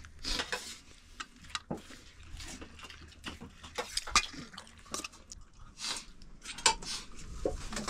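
Dishes clinking and scraping irregularly while people eat, with scattered sharp clicks and short scrapes.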